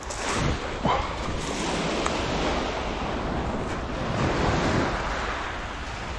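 Small waves breaking and washing over a shingle beach, with a steady rush that swells once around the middle, and wind on the microphone. A short knock about a second in.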